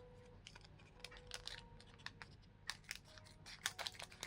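Faint, irregular crinkles and small clicks of a foil trading-card booster pack being opened and its cards handled.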